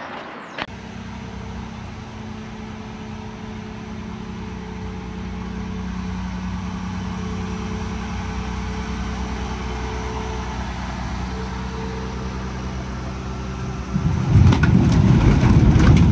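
A vehicle engine runs steadily and grows slowly louder as the hydraulic rams lift a tipping trailer body loaded with log rounds. About 14 seconds in, the load of logs slides out and tumbles onto the ground with a loud clattering.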